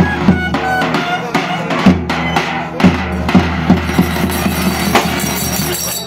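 Davul, the large Turkish double-headed bass drum, beating a dance rhythm in heavy strokes about twice a second, with a melody instrument playing over it.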